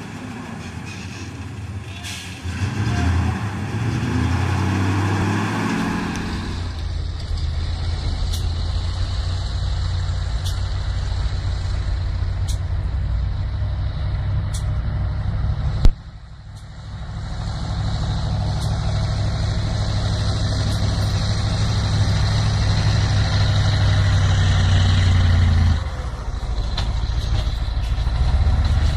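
Heavy truck's diesel engine running hard as the truck ploughs through deep snow. There is a sharp click about halfway through, and the engine sound changes abruptly a few times.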